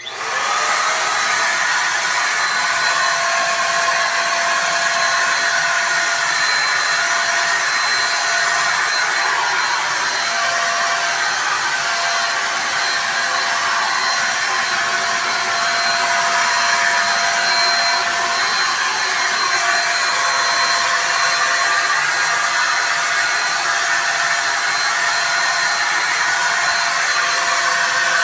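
Ingco handheld electric spray gun switching on suddenly and running steadily as it sprays paint: an even motor-and-air rush with a thin steady whine on top.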